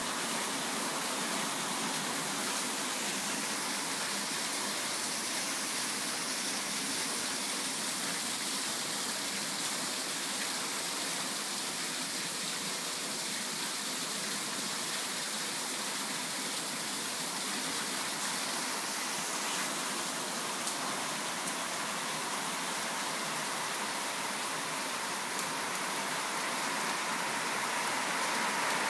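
Steady rain falling, with water dripping off the edge of a pergola roof; slightly louder near the end.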